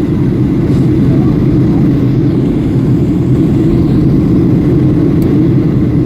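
Steady cabin noise of a Boeing 737-800 in flight: an even, loud rumble of engines and airflow, strongest in the low range.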